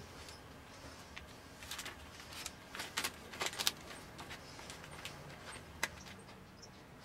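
Sheet of paper crinkling and rustling as it is pressed and dragged across a spray-painted board. The soft, irregular crackles come in a brief cluster about three seconds in, and there is one sharper click near the end.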